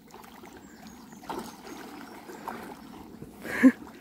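Dogs swimming and wading in a pond, the water splashing and lapping around them, with a short, louder noise near the end.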